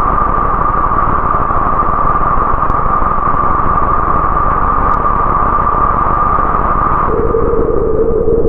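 Roland AIRA Compact S-1 synthesizer playing a steady noisy drone, a hiss-like wash centred on a high ringing band. About seven seconds in the sound shifts: the top is cut back and a lower held tone comes in beneath.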